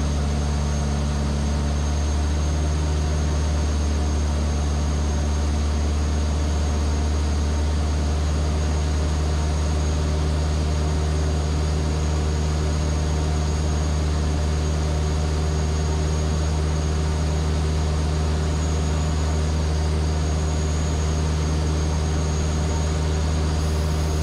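Steady, even-pitched drone of the Van's RV-7A's piston engine and propeller in level cruise, heard inside the cockpit.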